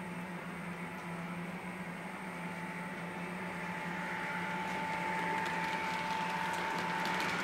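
Märklin ICE model train with an ESU sound decoder approaching along the track: a steady electric whine and running noise grow louder from about halfway through, with a few rail clicks near the end, over a steady low hum.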